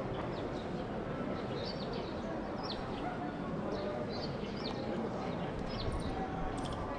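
Small birds chirping: short falling notes, irregularly every half second to a second, over steady background noise.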